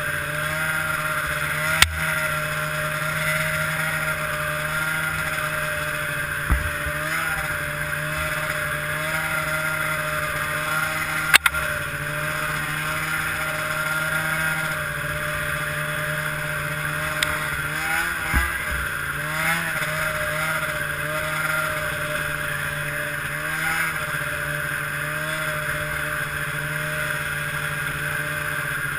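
Ski-Doo MX Z 670 snowmobile's two-stroke engine running steadily at speed through an aftermarket Walker exhaust can, its pitch rising and dipping a little with the throttle. A few sharp knocks cut through, the loudest about two seconds in and about eleven seconds in.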